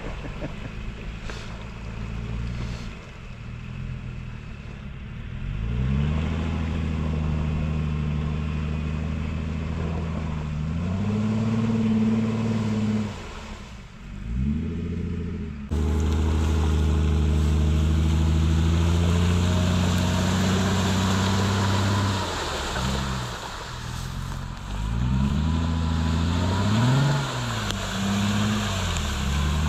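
Two-door Jeep Wrangler's engine revving as it drives through shallow water and ice, its pitch rising and falling again and again. Through the second half there is a steady rushing hiss under the engine, and the sound changes abruptly about halfway through.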